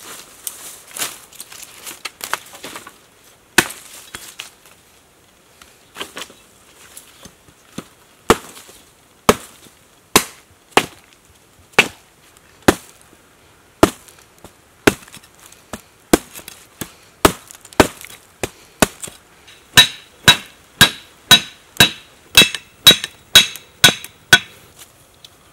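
Machete chopping a green stick: sharp, separate chops about one a second, then a quicker run of about two a second near the end, where each blow rings slightly.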